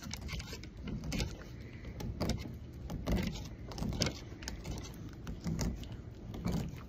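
A knife cutting into a whole steelhead during filleting: irregular scraping strokes and clicks, about one or two a second, as the blade works along the fish.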